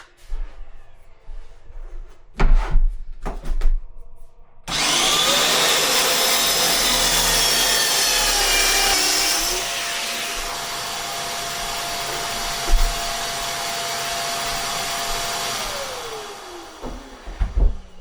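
A few handling knocks, then an electric power saw starts about five seconds in, runs steadily for about ten seconds while cutting a scribed worktop panel, and winds down in pitch as it is switched off.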